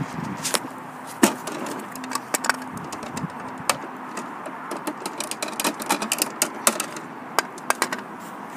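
Plastic toy garbage truck's side-loader arm and toy trash bin worked by hand, giving a run of irregular light plastic clicks and taps.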